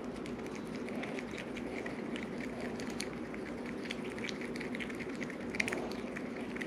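Stirring stick scraping and stirring epoxy mixed with black pigment in a mixing cup: many small irregular ticks and scrapes over a steady low hum.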